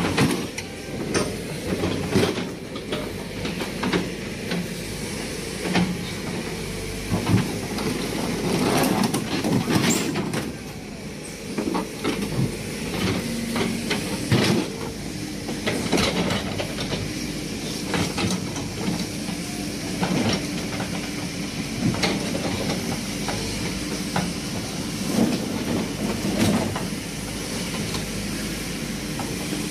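Hydraulic excavator's diesel engine running under load as its bucket crushes and drags a scrapped car body, with repeated irregular crunches, clanks and scrapes of crumpling sheet metal.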